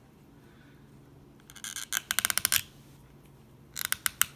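Spring-loaded latch hinge of an Oakley Latch sunglasses arm being folded and opened, giving two runs of rapid gritty clicks and scraping. This does not sound great: the owner suspects something is lodged inside the latch mechanism.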